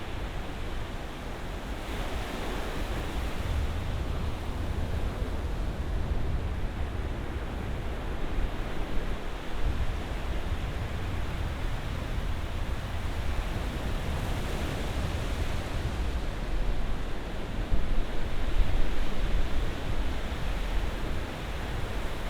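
Ocean surf washing in continuously, with a deep low rumble under the hiss of the water. Waves swell up about 2 seconds in and again around 14 seconds in, and the loudest break comes about 18 seconds in.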